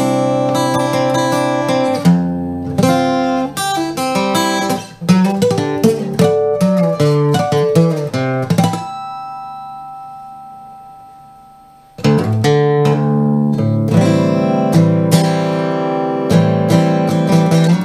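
Emerald X20 carbon-fibre acoustic guitar played in drop D tuning, a run of picked notes and strummed chords. About nine seconds in a chord is left to ring out and fade for about three seconds before the playing starts again.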